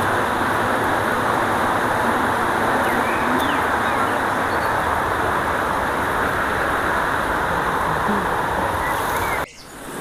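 Shallow river water rushing steadily over a stony bed, with a few faint bird chirps. The sound drops out sharply for a moment near the end, then swells back.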